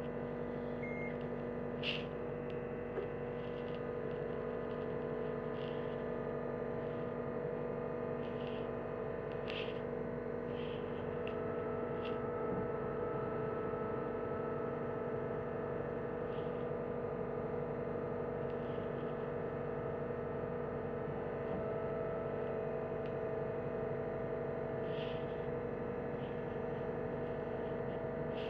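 John Deere 325G compact track loader's diesel engine running steadily, a constant hum with a few faint clicks over it.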